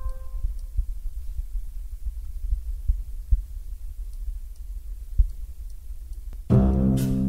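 A low rumbling hum with scattered soft thumps. About six and a half seconds in, a backing track starts with a plucked double bass, and a sharp finger-snap-like click comes just before the end.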